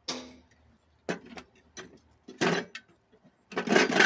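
Metal clanks, knocks and scraping as parts of a scrap microwave oven are worked loose by hand: a ringing clank at the start, a few separate knocks, then a quick rattling cluster near the end.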